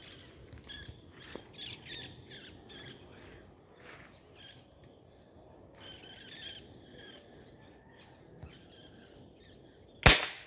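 Wild birds chirping and calling in the bush, several short calls and a high stepped whistle, over a faint background of insects. About ten seconds in there is a single sudden, loud bang.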